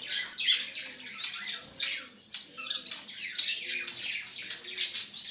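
Bengalese finches chirping: a busy, unbroken run of short, high calls, several a second.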